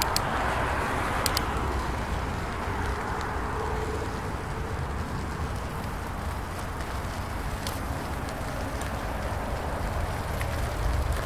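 Steady wind and tyre rumble from riding a bicycle along a trail, with road traffic noise that fades away over the first few seconds.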